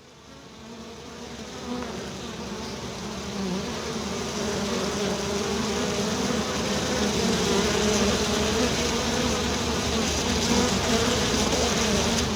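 A swarm of bees buzzing: many wavering hums blended together, fading in over the first few seconds and then holding steady.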